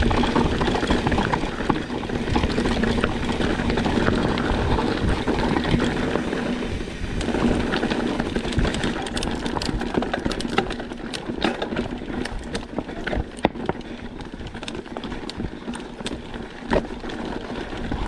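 Mountain bike riding fast over a rough trail: wind rushing over the microphone and the bike rattling, with many sharp knocks and clatters from about nine seconds in.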